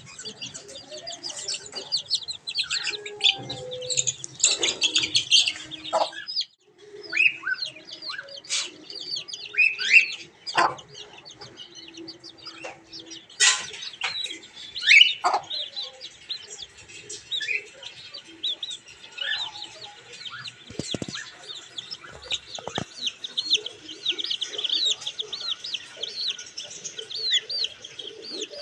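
Domestic chicks peeping: many short, high, falling chirps, with a hen clucking low among them.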